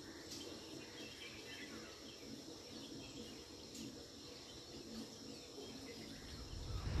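Faint outdoor ambience: a steady insect drone with scattered short bird chirps, and a low rush that swells near the end.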